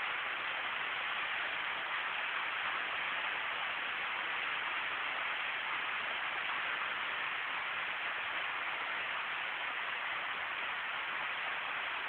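Underground cave waterfall: water falling and splashing in a steady, unbroken rush.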